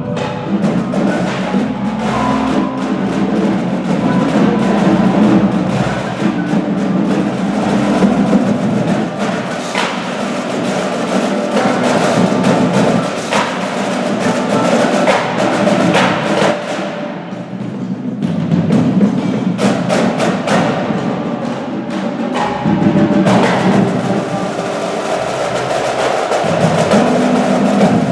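Percussion ensemble playing a piece: a dense rhythm of drum strokes mixed with pitched notes, easing off briefly about two-thirds of the way through.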